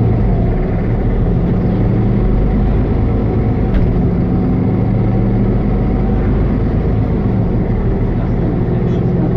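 Mercedes-Benz O530G Citaro G C2 articulated city bus heard from inside the passenger cabin while driving: its engine and Voith D864.6 automatic gearbox give a steady low hum over road noise, the pitch drifting down a little and back up.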